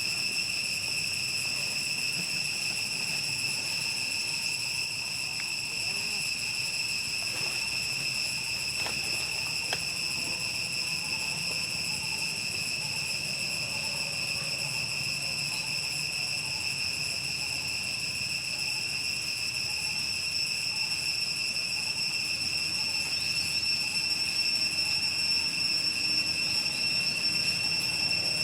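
Steady high-pitched insect trill, one continuous unbroken tone with overtones.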